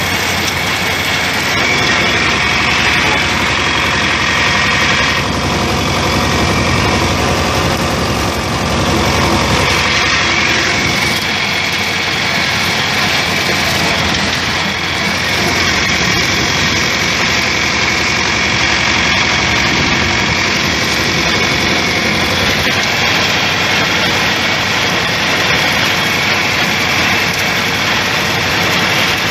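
Tractor engine running steadily under load while pulling a rotary cutter (brush hog) that is mowing, its spinning blades chopping grass and brush.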